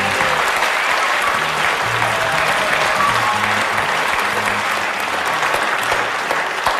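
Studio audience applauding, with the show's band music playing underneath.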